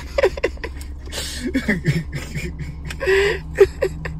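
Indistinct voices talking and laughing over a steady low hum.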